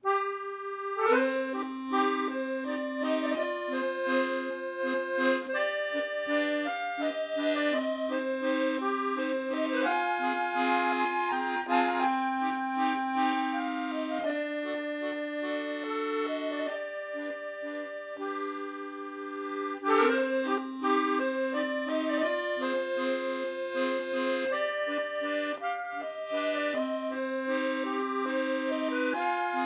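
Accordion music: a slow tune played over sustained chords.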